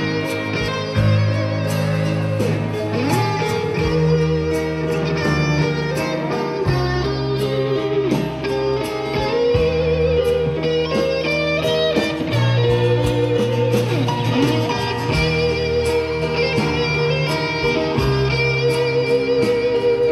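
Live folk band playing an instrumental passage without singing: acoustic guitars picking and strumming over bass chords that change every couple of seconds, with a held, wavering melody line above them.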